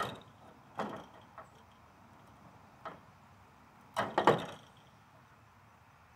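Channel-lock pliers and a metal chandelier frame clanking as stuck wires are wrenched at inside the arm: a few scattered clinks, then a quick cluster of louder metal clanks about four seconds in.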